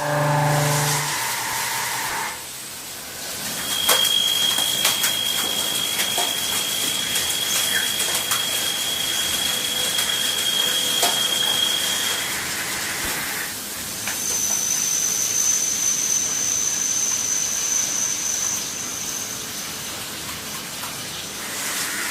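CNC machine running, a steady rushing hiss with a high, steady whine that holds for about eight seconds, then a higher whine for about six seconds.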